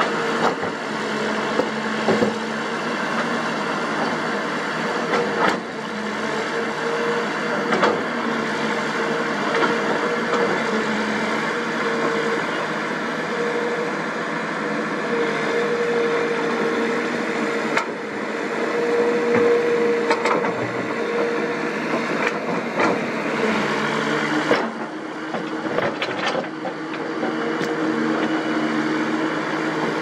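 Kobelco SK200 hydraulic excavator working, its diesel engine and hydraulics running with a steady whine, and scattered sharp knocks of the bucket on rock and dirt. About three-quarters of the way through, the pitch of the whine drops.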